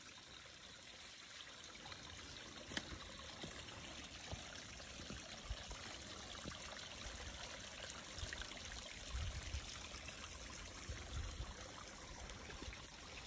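Small mountain creek trickling and splashing steadily over rocks.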